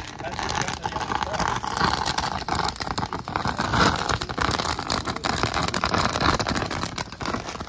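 Firework fountain burning in the front funnel of a model ship: a steady hissing spray of sparks, peppered with crackles.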